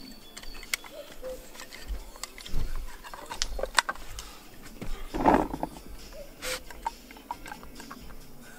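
Carp boilies being halved and crumbled into a bait mix: scattered small clicks and knocks, with a louder rustle about five seconds in.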